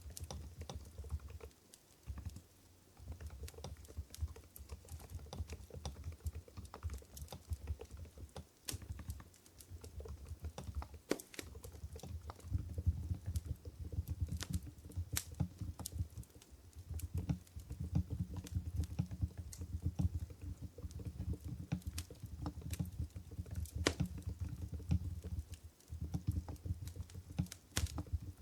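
Continuous typing on an Mstone Groove GV10 keyboard with silent Coral 45 g switches: a rapid run of soft, muted keystrokes, broken by a few brief pauses.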